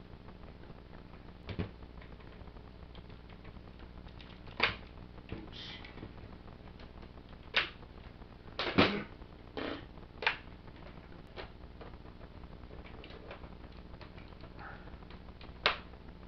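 Hard plastic toy parts clicking and knocking as a large Transformers figure is handled and its pieces are snapped into place: about seven sharp clicks at uneven intervals, the loudest a short rattling clack about nine seconds in.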